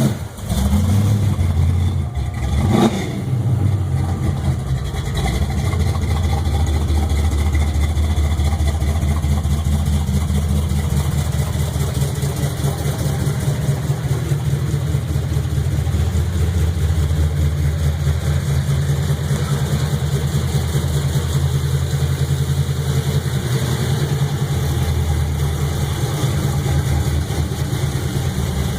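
440 Magnum big-block V8 of a 1962 Plymouth Savoy wagon running at a steady idle with a rapid pulsing exhaust note, after a short blip about three seconds in.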